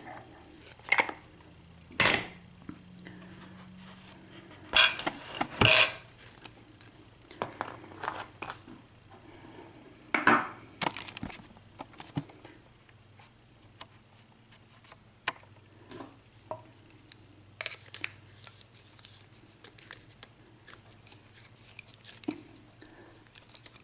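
Irregular sharp metal clicks and clinks of an American Padlock A1100 and its lock picks being handled just after the lock has been picked open, with louder clattering clusters about 2, 5, 10 and 18 seconds in.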